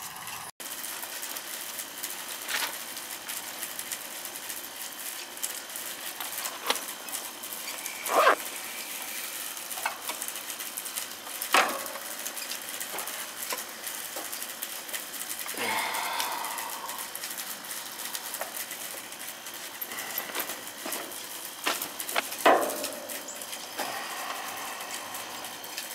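Gloved hands working the wires in an air-conditioner condenser's electrical box: a few sharp clicks and knocks of wire and terminal handling against the metal box, over a steady hiss.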